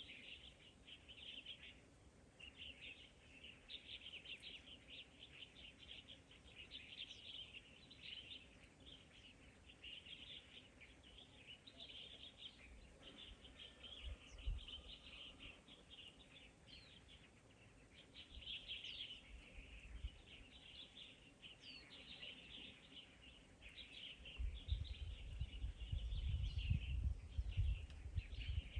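A steady, high-pitched chorus of dense chirping from birds or insects, with a few faint thin whistled notes above it. About 24 seconds in, a low rumble sets in underneath.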